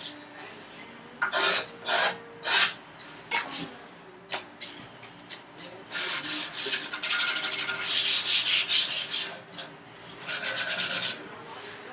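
Hand sanding on the end of a curly maple vise chop: scattered single rubbing strokes at first, then a steady run of quick back-and-forth strokes from about six seconds in, and another short run near the end.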